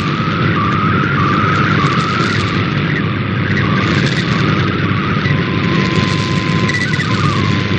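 MFSK digital-mode tones carrying an image, received over shortwave amid heavy static and interference: a warbling, shifting tone over a constant hiss, with a steady whistle coming in about five seconds in.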